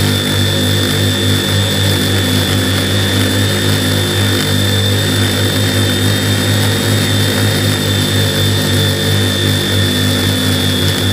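A drone's electric motors and propellers running steadily, close to the onboard camera: an even hum with a thin, steady high whine above it.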